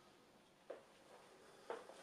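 Near silence with two faint short clicks about a second apart: a fingertip pressing on the metal securing lock of a MacBook Pro's display data cable connector.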